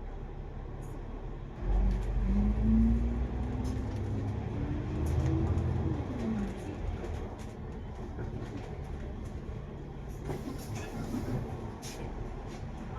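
Double-decker bus engine and drivetrain heard from on board: a low rumble swells about a second and a half in as the bus accelerates, with a whine rising in pitch for a few seconds and then dropping away, before settling back to quieter running with light rattles.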